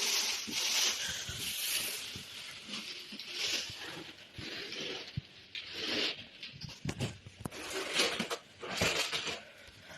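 Rustling and scraping of packaging being pulled and handled while a new mini fridge is unpacked, in irregular bursts with scattered knocks.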